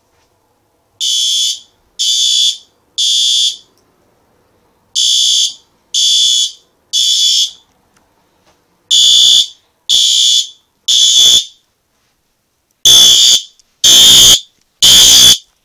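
System Sensor SpectrAlert Advance fire alarm horns sounding together in the temporal-three evacuation pattern: groups of three half-second horn blasts with a pause between groups, four groups in all. The last groups are louder and harsher.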